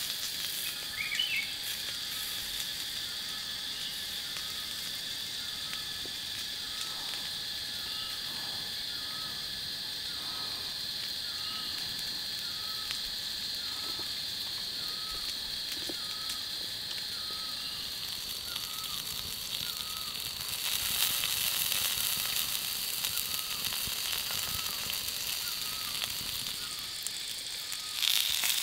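Forest ambience: a steady high-pitched insect drone with a short chirp repeating about once a second. About two-thirds of the way in, a crackling hiss like a fire or food sizzling joins, and it gets louder near the end.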